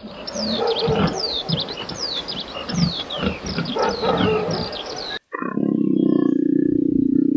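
Birds chirping, with many quick falling calls over a low rumbling background; about five seconds in it cuts suddenly to a loud, steady, low-pitched animal call.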